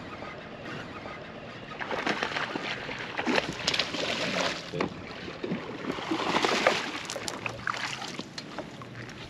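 A hooked largemouth bass thrashing and splashing at the water's surface in two bouts, about two seconds in and again about six seconds in, as it fights the line and jumps.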